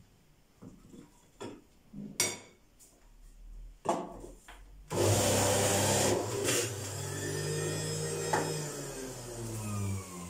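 Electric juicer: a few light knocks as apple pieces are handled and dropped into the feed chute, then about five seconds in the motor starts with a sudden loud whir as the pusher presses the apple through. The pitch sinks over the last few seconds.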